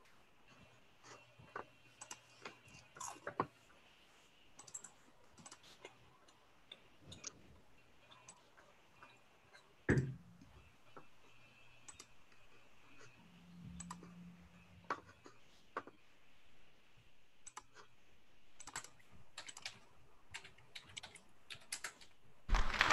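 Faint, scattered clicks and taps of a computer mouse and keyboard, with one louder knock about ten seconds in. Near the end a loud recorded applause sound effect starts, played through the shared computer audio.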